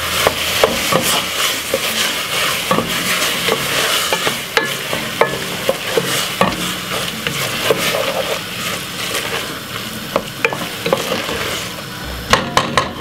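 Wooden spoon stirring saltfish and chopped vegetables in a metal pot, with irregular knocks and scrapes of the spoon against the pot over a steady sizzle of frying.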